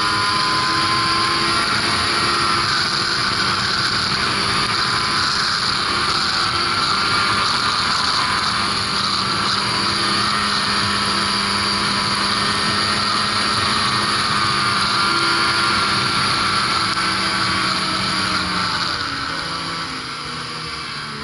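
Ski-Doo Mach Z 1000 SDI two-stroke snowmobile engine running steadily at speed, with a steady rush of wind. The engine note eases off near the end as the throttle comes back.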